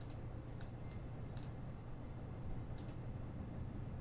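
Faint computer mouse clicks, about six sharp clicks, some in quick pairs, over a low steady hum.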